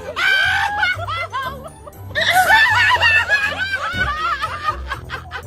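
Laughter and snickering over background music with a stepping bass line; the laughter is loudest about two seconds in.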